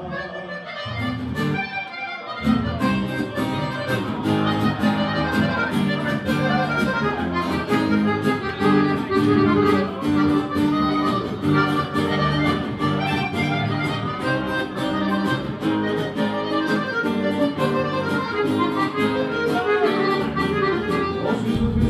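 Background music: an instrumental track of sustained chords, with a regular beat that comes in about a second in.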